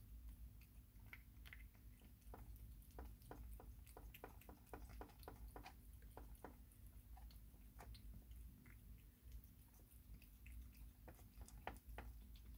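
Kitten chewing wet cat food: faint, quick wet clicks and smacks. They come thick and fast for a few seconds, then more scattered, bunching again near the end, over a low steady hum.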